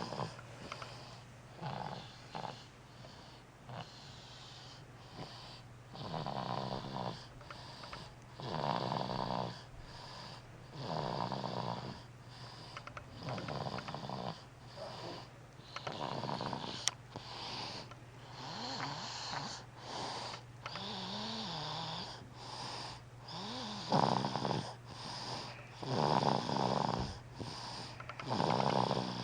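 An almost eight-month-old baby snoring in her sleep: a raspy snore with each breath, every two seconds or so, over a steady low hum.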